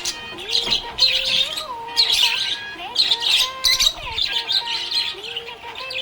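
Budgerigars chirping and warbling in bursts about once a second, over lower whistled tones that step up and down in pitch.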